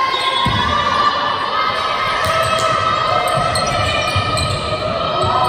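A basketball dribbled and bounced on a hardwood court in a reverberant sports hall, thudding repeatedly, with sustained pitched calls from players over it.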